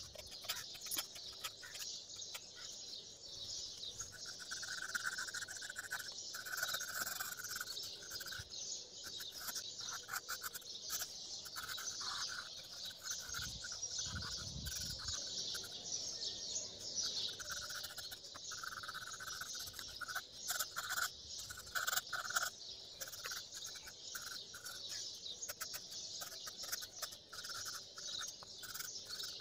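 Birdsong ambience: birds chirping over a dense, steady high chirring, with a clearer call lower down that comes and goes in stretches of a second or two.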